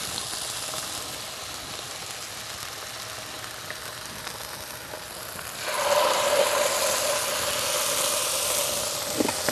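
Chicken searing skin side down on a hot electric griddle: a faint sizzle, then a louder, steady frying sizzle that starts suddenly a little past halfway as a second piece is laid on the hot surface.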